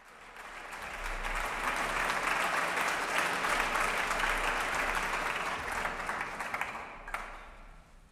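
Audience applauding in a hall, building over the first second and dying away near the end.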